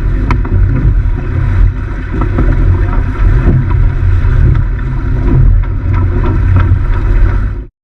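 Wind buffeting the microphone on a sailboat under way: a loud, uneven, rumbling rush with a few faint knocks scattered through it. It cuts off abruptly near the end.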